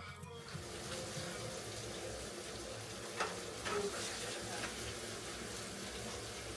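Food sizzling in a hot frying pan, with the hiss starting abruptly. A few light clicks of a utensil against the pan come about three to four and a half seconds in.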